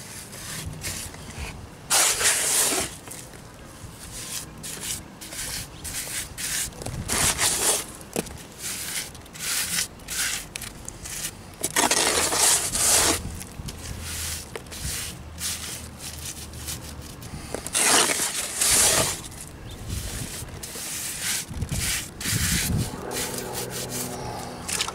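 Gloved hand rubbing and scraping rapid-set cement into the cracks and joints of a concrete-block chimney, a string of short scrapes with four louder ones of about a second each, several seconds apart.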